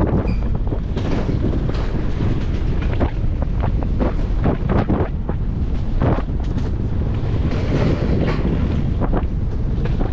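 Wind buffeting a GoPro microphone over the steady rumble of a summer bobsled running down its track, with frequent short rattles and clacks from the sled.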